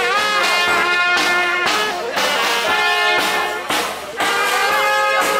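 Live brass band playing an upbeat tune: trumpets and trombones over a steady drumbeat.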